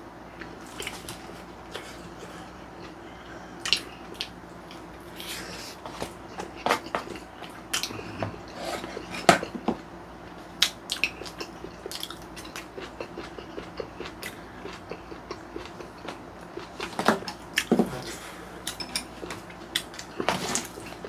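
Close-up eating sounds: chewing and biting into stir-fried pork rice and kimchi sundae, with a wooden spoon and chopsticks clicking and scraping against plastic takeout trays. The clicks come irregularly, a few louder ones about nine seconds in and again near the end.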